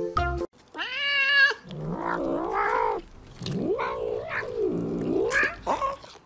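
A tabby cat yowling over food. It gives a short high meow about a second in, then several long wavering calls that rise and fall in pitch.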